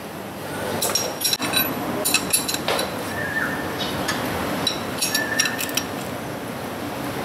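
Light metallic clinks and ticks in irregular clusters as a chain rivet tool and wrench are worked on the new motorcycle chain's master link. A short high chirp sounds twice.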